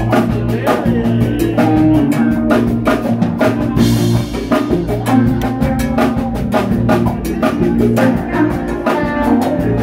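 Live rock band playing an instrumental jam: electric guitars with bass over a drum kit keeping a steady beat.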